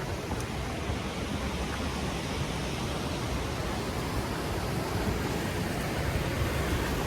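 Steady rushing of creek water, an even noise that holds throughout.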